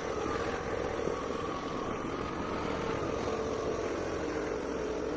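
A motor vehicle's engine running steadily while travelling along a road, with road and wind noise, making an even, unbroken hum.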